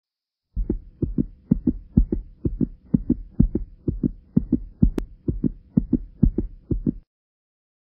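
Intro sound effect of low, heartbeat-like thumps, mostly in close pairs about two to three times a second, over a faint steady hum. There is a sharp click about five seconds in, and the thumps cut off abruptly about seven seconds in.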